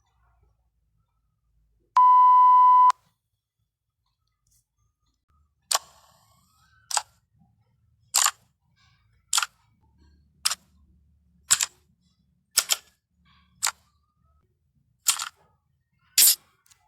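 A single steady beep lasting about a second, then, from about six seconds in, a run of about ten short sharp clicks roughly a second apart.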